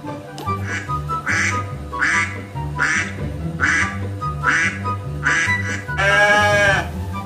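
Recorded duck quacks played back, a short quack about every three-quarters of a second, over background music, then one louder, longer wavering call near the end.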